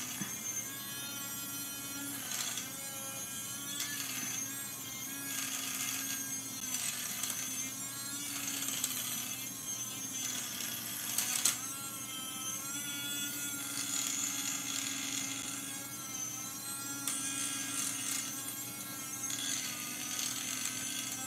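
Small battery-powered electric tobacco grinder running steadily, its motor whirring as the blade chops a piece of chalk into powder. The pitch wavers a little as it works through the chalk.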